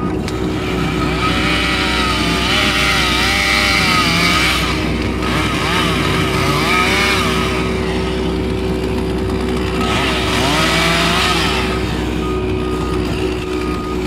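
Case skid steer's diesel engine and hydraulics running steadily, heard from inside the cab, while a chainsaw outside revs and cuts in three bursts with its pitch rising and falling under load.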